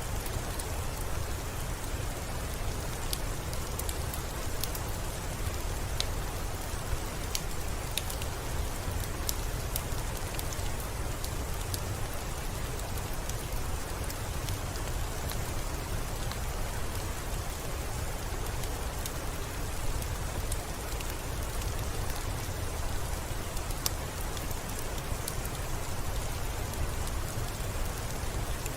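Steady rain pattering on a window, with scattered sharp clicks at irregular moments.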